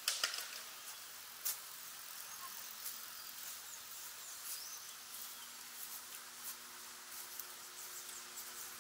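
Outdoor park ambience: a steady high hiss with faint, short chirps of small birds, broken by a few sharp clicks, the loudest right at the start and another about a second and a half in.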